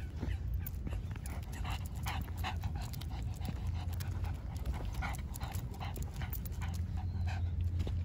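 Shih Tzu panting in quick, even breaths, about two or three a second, over a steady low rumble.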